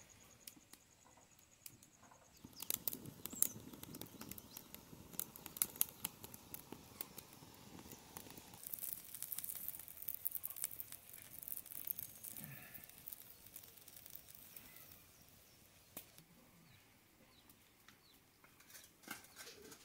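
Curry boiling hard in a pan over a wood fire, bubbling and frothing. It crackles with many small pops through the first half, then turns to a fizzing hiss for several seconds before settling quieter.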